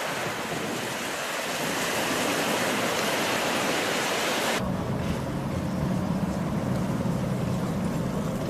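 Rough sea surf, a steady hiss of breaking waves, cuts off abruptly about halfway through. A low engine hum then runs steadily.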